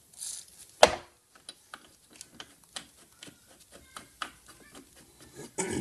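A short hiss of WD-40 aerosol spray, then a sharp knock. A run of light metallic clicks and ticks follows as the steel parts of a brake-lathe cutting head are handled and its adjustment knobs turned, ending with a heavier clunk.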